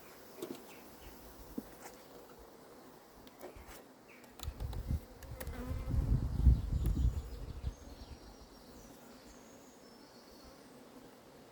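Honeybees buzzing around an opened hive, with a few faint clicks. About halfway through, a loud low rumble lasts for roughly three seconds.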